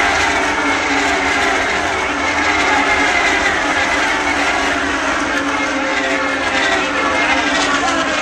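A field of IndyCar racers running at full speed around the oval, their Honda 3.5-litre V8s making a dense, steady whine of many overlapping pitches that slide as the cars go by.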